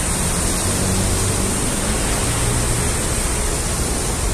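Steady rush and splash of water from the jets of a large stone street fountain, with a faint low hum beneath.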